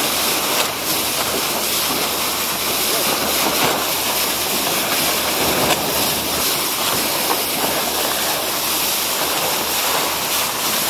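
Steady rushing and splashing of a boat's bow wave as the hull cuts through the sea at speed.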